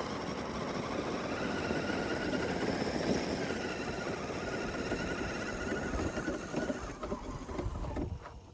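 1/10-scale Axial SCX10 III RC crawler driving over rough desert ground: its brushless motor and gears whine, with a crunching rumble from the tyres. The sound eases off and breaks up near the end.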